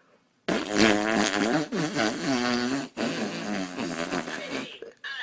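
A long, fluttering fart noise that starts suddenly about half a second in and runs for about four seconds, with a brief break near the middle.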